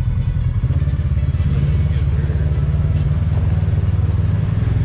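Side-by-side UTV engine running at low, steady revs as it drives up a rocky trail.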